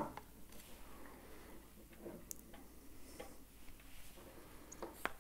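Faint, scattered clicks and light taps as a toaster's power cord and outer metal shell are handled, with a couple of clearer clicks about two seconds in and near the end.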